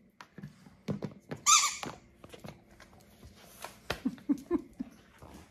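A dog's rubber squeaky toy being chewed by a German shepherd: one loud squeak about one and a half seconds in, then a few shorter, lower squeaks around four seconds in. Scattered clicks and knocks of the toy and the dog's claws on a concrete floor run between them.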